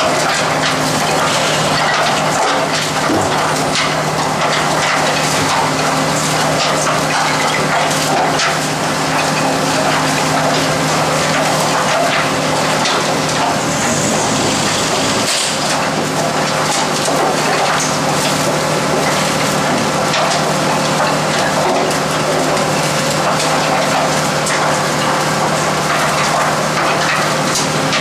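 Japanese rotary-drum garbage truck compacting refuse in its rear hopper. It makes a continuous crunching and crackling over the steady drone of the truck's engine driving the compactor.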